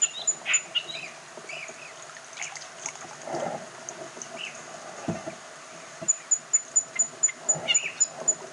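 Wild mangrove ambience: a rapid run of thin, high-pitched ticking notes, about five a second, stops about a second in and returns about six seconds in, over scattered short bird chirps and a faint steady drone. A few soft low thumps come in between.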